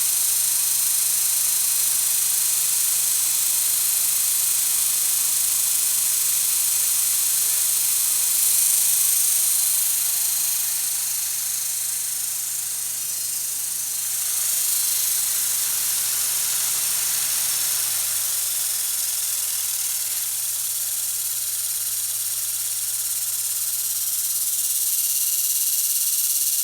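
Lincoln SA-200 blackface welder's engine running, heard as a loud steady hiss over a low hum. About 18 seconds in, the low hum changes pitch and steadies again.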